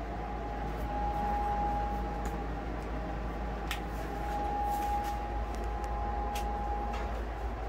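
Steady low machine hum with a constant thin high whine, with a few faint clicks scattered through it.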